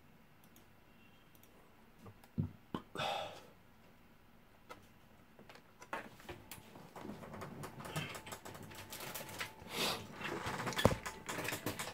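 Sheets of paper being handled on a desk: a few isolated knocks, then close rustling and small tapping clicks from about six seconds in, with one sharper knock near the end.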